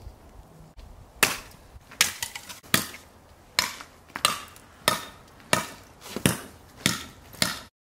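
Hand-forged leaf-spring steel cleaver chopping wood: about ten sharp strikes, spaced roughly two-thirds of a second apart, cutting off suddenly near the end.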